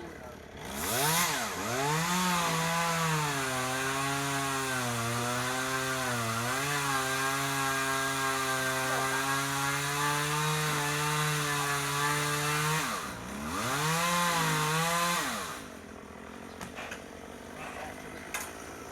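Chainsaw revving up, then running steady at high speed for about ten seconds as it cuts wood, its pitch sagging and recovering a little under load. It revs once more, then falls back to quiet about three-quarters of the way through.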